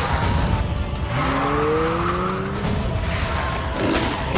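Trailer sound mix of dramatic music with an engine revving up. Its pitch climbs for about a second and a half, starting about a second in, and a sharp bang comes near the end.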